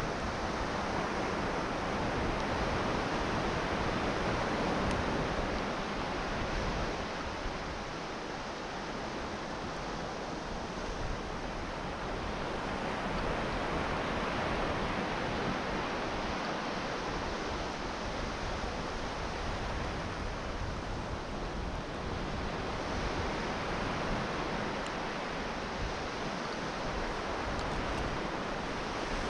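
North Sea surf breaking on a sandy beach: a continuous wash of waves that swells and eases every ten seconds or so, with wind rumbling on the microphone.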